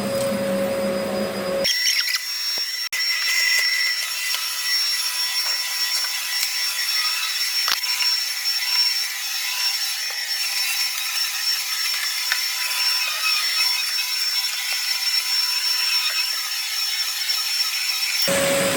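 Vacuum cleaner running over carpet: a steady high-pitched motor whine over a rushing, scraping noise. The deep part of the sound drops out abruptly about two seconds in and comes back near the end.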